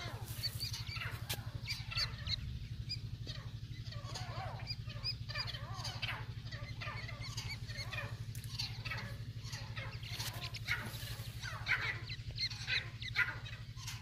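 A brood of teetar (francolin) chicks peeping constantly, many short high calls overlapping, over a steady low hum.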